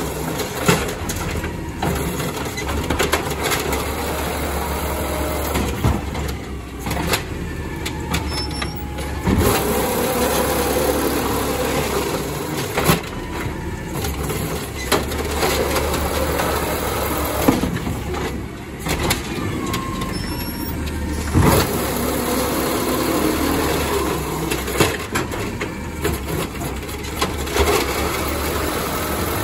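Refuse truck engine running steadily, with repeated sharp knocks and bangs and a few brief whines.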